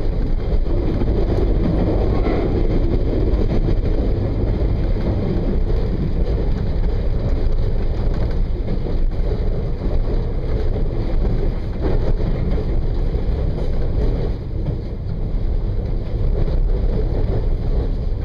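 Regional passenger train running along the line, heard from on board: a steady low rumble of the wheels and running gear on the rails.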